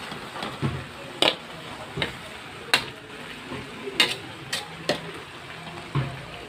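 Metal spatula clinking and scraping against a metal wok while thick coconut-milk laing is stirred, about six sharp knocks spread over a few seconds.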